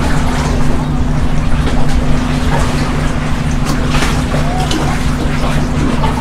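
An engine running steadily, a constant low drone with a steady hum.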